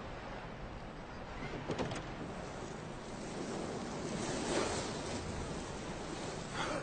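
Steady rushing noise that swells about four and a half seconds in, with a few faint clicks about two seconds in.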